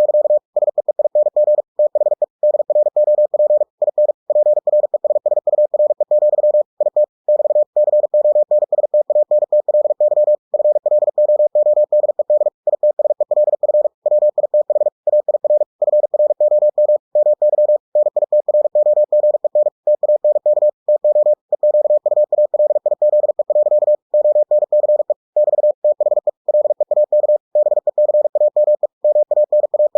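Computer-generated Morse code at 45 words per minute: a single steady beep tone keyed on and off in very fast dots and dashes, broken by short silent gaps between words.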